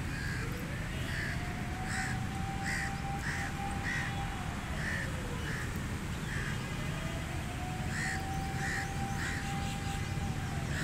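Crows cawing over and over, short calls about every second, with a short pause about two-thirds of the way through. Beneath them a siren-like tone slowly rises, holds and falls away, twice, over a steady low rumble.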